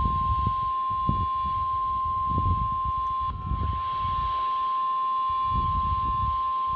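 NOAA Weather Radio 1050 Hz warning alarm tone: one long, steady, high tone with a brief hitch about three seconds in, over a low, uneven rumble of noise. It is the alert signal that comes before a warning broadcast, here a tornado warning.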